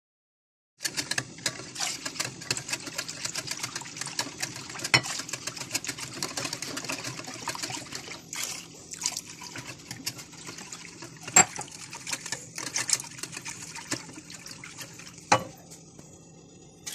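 Wire whisk beating a thin tahini sauce in a glass bowl: fast, wet clicking and swishing of the wires through the liquid and against the glass, starting about a second in, with a few sharper knocks on the bowl.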